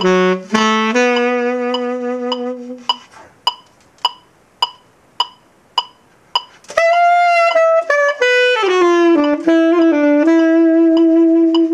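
Tenor saxophone playing a blues-scale phrase that settles on a held low note, then a rest of about four seconds in which only a steady click keeps time, about two a second. A second phrase comes in near seven seconds and ends on a long held note.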